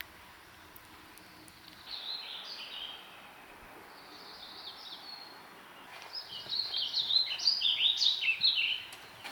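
Songbird singing: a short phrase of high chirping notes about two seconds in, then a longer, louder run of rapid varied chirps from about six seconds in until near the end, over a faint steady hiss.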